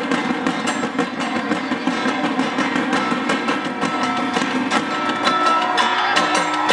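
Loud dance music with a fast, steady drum beat, accompanying a street-dance routine.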